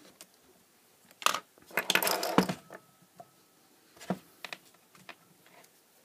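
Handling clatter as a digital multimeter, its test leads and a couple of screwdrivers are picked up and set down on the bench: a burst of knocks and rattles in the first half, then a few lighter clicks.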